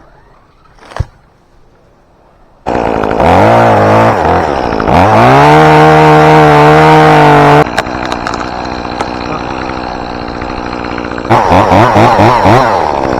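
Chainsaw engine, quiet at first apart from one sharp knock. It then comes in abruptly and is revved up, held at a steady high throttle for a few seconds, and drops back to idle. Near the end it is blipped up and down in quick revs.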